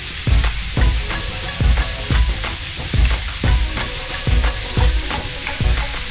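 Metal ladle scraping and knocking against a metal wok about twice a second, stir-frying chicken pieces with lemongrass, over a steady sizzle of frying.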